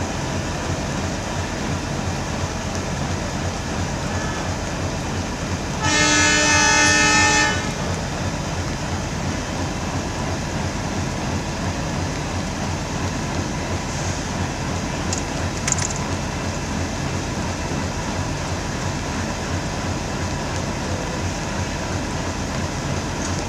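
Horn of an Indian Railways WDM-class diesel locomotive giving one blast of about a second and a half, a few seconds in, over the steady running noise of the departing train.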